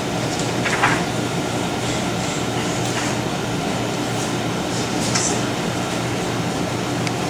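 Steady hum and rush of a room air conditioner, with a faint brief sound about a second in and again about five seconds in.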